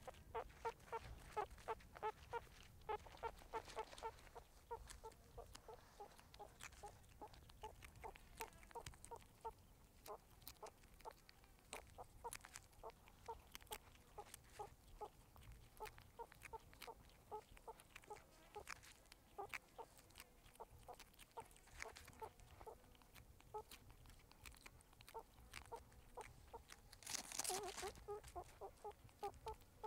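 Meerkats giving soft, clucking calls, short notes repeated quickly at about four or five a second. A brief, louder rustling burst comes near the end.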